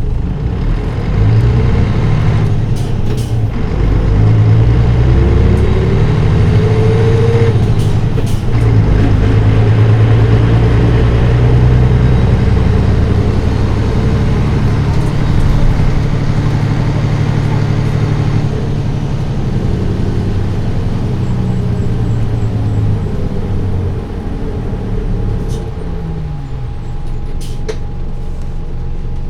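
Nissan Diesel Space Runner bus's PF6HT diesel engine pulling hard, its note rising and then cutting briefly about 3 and 8 seconds in as it changes up through the air-assisted five-speed manual gearbox. After about 18 seconds the engine eases off and runs more quietly.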